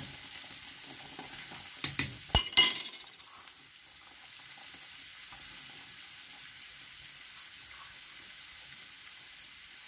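Fresh cabbage being cut and handled on a plastic cutting board: a few sharp knocks about two seconds in, then a steady soft crackling hiss.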